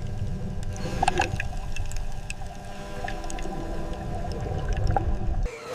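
A turtle recording: a steady low rumble with gurgling, water-like noise, faint held tones and scattered clicks. It cuts off sharply near the end.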